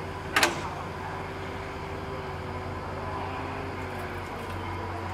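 Steady low hum of diesel locomotives. About half a second in there is one short, sharp noise, the loudest thing here.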